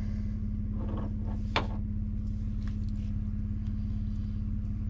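Vehicle engine idling with a steady low hum, with faint handling rustle and one sharp click about a second and a half in.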